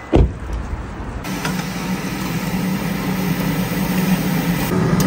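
Meat sizzling on a tabletop charcoal barbecue grill, under a steady low hum, with a single knock just before it starts.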